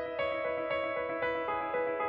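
Calm instrumental background music: a keyboard strikes a new note about twice a second over a low note held throughout.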